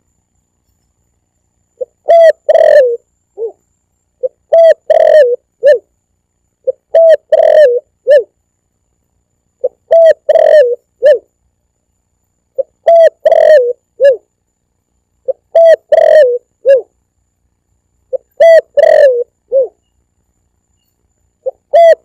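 Spotted dove (tekukur) cooing: the same short phrase of a few coos repeats about every two and a half seconds, eight times, with complete silence between phrases. It is a looped recording played as a hunting lure call.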